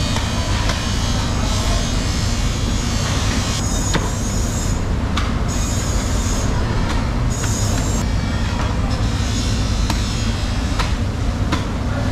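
A steady low rumble of background noise, with a few sharp clicks and scraping as a knife cuts into a whole large tuna behind its head.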